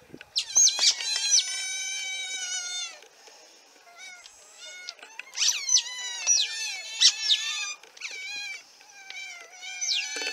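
Several Asian small-clawed otters squealing and chirping: shrill, high calls with quick pitch sweeps, many overlapping, in bursts with a lull a few seconds in.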